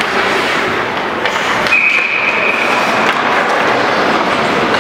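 Ice hockey play in an indoor rink: steady skate and rink noise with a few sharp knocks of sticks and puck. A single high, steady whistle tone sounds for about a second near the middle.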